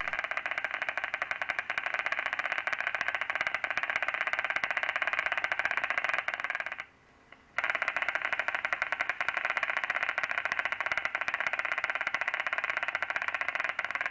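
Single-fibre EMG loudspeaker audio from the left extensor digitorum communis: a fast, steady crackle of sharp clicks from a repetitively firing motor unit, cutting out for under a second midway. The motor unit's potentials show increased jitter and blocking, a sign of abnormal neuromuscular transmission.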